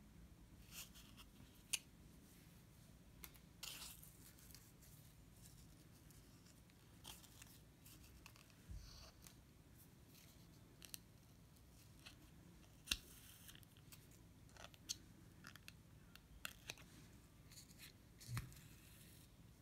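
Faint, scattered small ticks and scratchy strokes from hand beadwork: a needle pushed through stiff backing and thread drawn through, with tiny clicks of seed beads.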